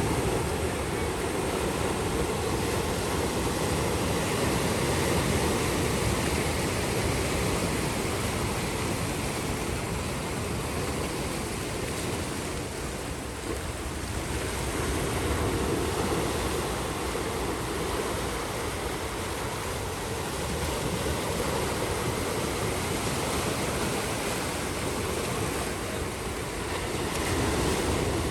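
Ocean surf breaking and washing up a beach: a steady rush of waves that swells and eases slowly.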